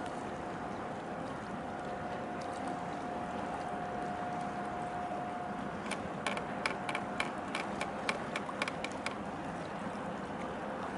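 Steady wind and harbour-water noise with a faint steady hum that fades about halfway through. About six seconds in comes a quick run of a dozen or so sharp clicks over about three seconds.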